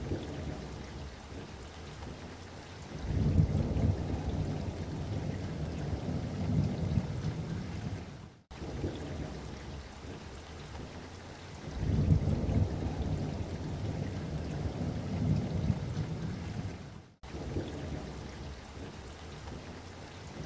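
Low rumbling noise that swells and eases, repeating in stretches of about nine seconds, each broken off by a brief dropout.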